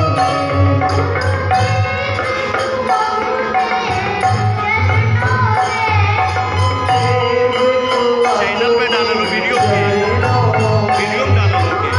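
Devotional bhajan performed live: a boy's voice singing over a harmonium's held notes, with a dholak barrel drum beating a steady rhythm.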